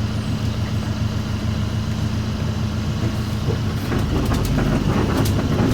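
Safari vehicle's engine idling steadily, growing louder and rougher about four seconds in.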